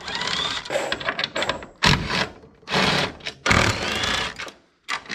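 Cordless drill/driver with a socket extension running in several short runs as it backs out screws from the car's front-end supports, its motor whine rising and falling as it spins up and stops.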